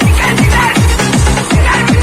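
Electronic dance music with a steady, fast beat of deep kick drums that drop in pitch.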